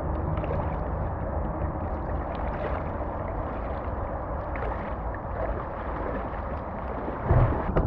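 Shallow lake water lapping and gurgling around a camera sitting right at the surface, with the splashes of someone wading away through it. A louder bump near the end.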